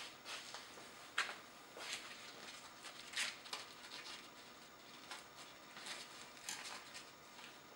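Faint handling noises: a few soft clicks and rustles as hands touch and adjust the RC microlight trike model's wing, the sharpest about a second in and about three seconds in.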